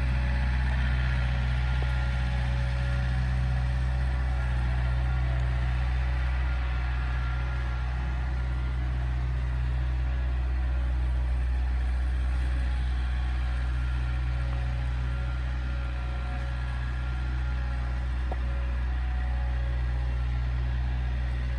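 Engine of the machine dragging a large poplar log uphill on a chain, running steadily at an even pitch.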